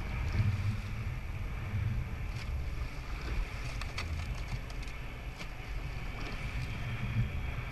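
Rowing eight under way: water rushing along the hull and wind buffeting the microphone in a steady low rumble, with a few sharp clicks from the oars working in their gates.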